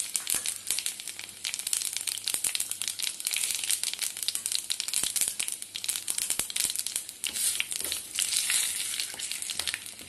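Cumin seeds and dried red chillies frying in hot oil in a pan, a rasam tempering: a steady sizzle with dense, irregular crackling and popping.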